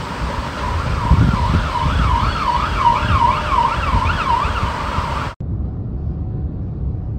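Emergency vehicle siren in a fast yelp, its pitch swinging up and down about three times a second over a low rumble. The sound cuts off abruptly a little over five seconds in, leaving a quieter, duller background.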